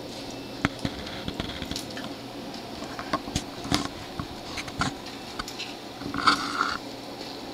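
A cat batting a plastic milk-jug ring around a tile floor: scattered light clicks, taps and skitters. About six seconds in comes a short, louder scrape. A steady low hum runs underneath.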